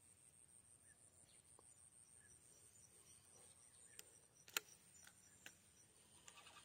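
Near silence with a faint, steady high-pitched insect chorus. A few sharp clicks fall in the second half, one clearly louder than the rest.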